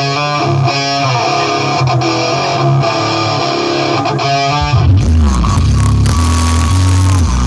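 Loud music played through a large sound system: a guitar-led passage over a bass line, which cuts about five seconds in to a different track with much heavier bass and a held note that bends downward near the end.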